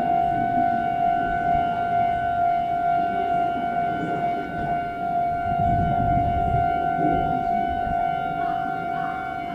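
Railway warning alarm holding one steady high tone with overtones, unbroken, signalling that a train is about to pass through the station. A low rumble swells briefly about six seconds in.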